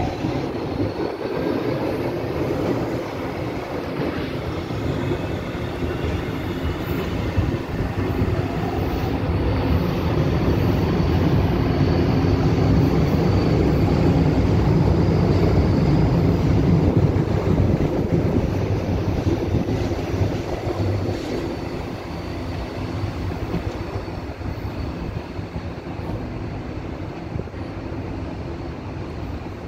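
Electric metro trains running through a station: a faint rising motor whine as a train pulls away, then the steady rumble of a train's wheels on the track, growing to its loudest midway and easing off toward the end.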